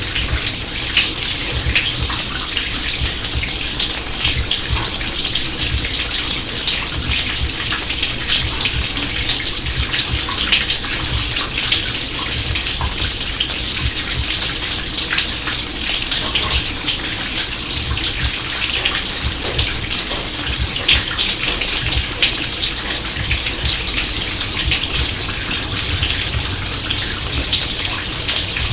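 Water running and splashing steadily at a kitchen sink, a continuous pour with many small spatters and drips.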